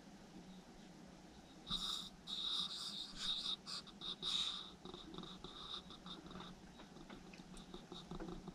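Raccoons feeding at a food bowl; about two seconds in, a high-pitched chittering broken into short pulses runs for about three seconds, then gives way to fainter clicks.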